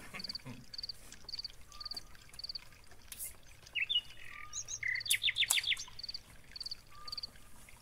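Night-time countryside chorus of small chirping animals: a high, short double chirp repeats steadily about twice a second. A louder burst of rising chirps and a quick trill of about five notes comes about halfway through.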